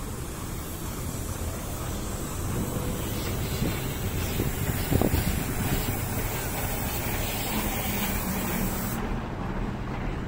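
Steady city traffic noise from the road beside the path, mixed with wind on the microphone, with a brief louder swell about five seconds in.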